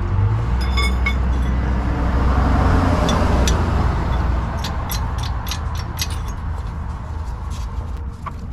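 A road vehicle passing by, its rumble swelling to a peak about two to three seconds in and then slowly fading, with scattered light clicks later on.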